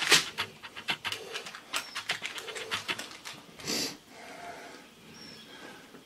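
Parchment paper crinkling and rustling in quick, irregular strokes as bacon strips are pressed into a parchment-lined cast iron pan, busiest over the first three seconds, with one louder crinkle near the middle.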